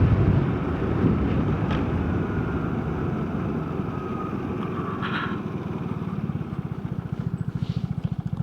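Vespa GTS 300's single-cylinder four-stroke engine running as the scooter rides, easing off, then dropping toward idle near the end with distinct, even firing pulses.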